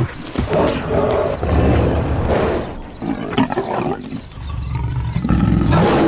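A big cat growling and roaring in rough bouts, the last and loudest near the end.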